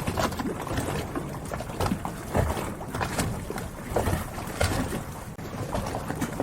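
Harbor ambience: water moving around moored boats, with short, irregular knocks and slaps every half second or so over a steady low wash.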